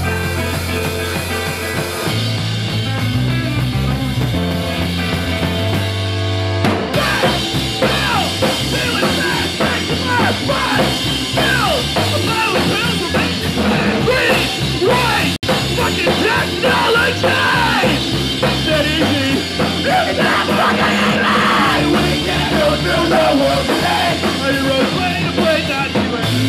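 Live punk rock band playing an instrumental passage between sung lines. It is thinner and bass-heavy at first, and the full band comes in louder about seven seconds in.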